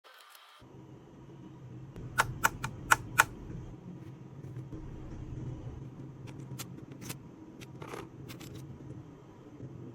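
Key presses on a darkFlash GD100 mechanical keyboard: four sharp clacks about two to three seconds in, then scattered single keystrokes, over a steady low hum.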